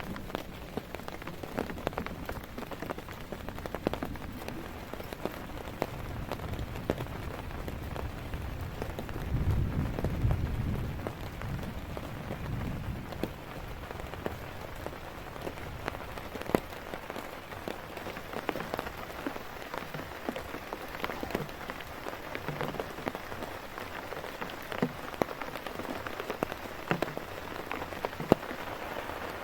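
Heavy rain falling, with many sharp separate drops ticking on a surface close by. A low rumble swells for a few seconds about ten seconds in.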